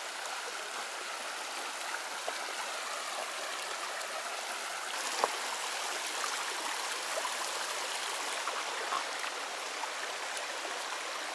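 Small rocky mountain creek running over stones in shallow riffles: a steady rush of flowing water. One short knock about five seconds in.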